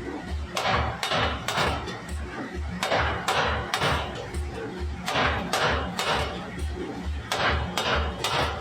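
Repeated hammer blows on metal, sharp ringing strikes about one to two a second, over background music with a steady low beat.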